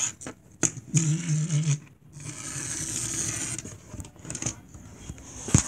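Pullback Totoro toy's spring motor whirring and its wheels scraping on a desk as it is pulled back and let run: a choppy buzz, then a steady whir. A sharp knock just before the end.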